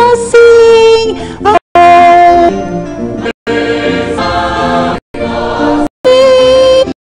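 Choir singing a hymn in long held notes with vibrato, broken by about four brief dropouts where the sound cuts to silence.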